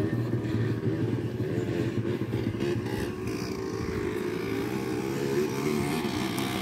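Dirt bike engine running steadily at low revs, a continuous motorcycle engine note.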